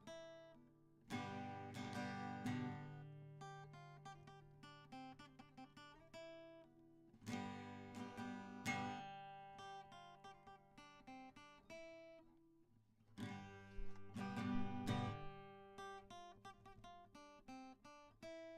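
Background music of acoustic guitar: a strummed chord about every six seconds, with picked notes ringing in between.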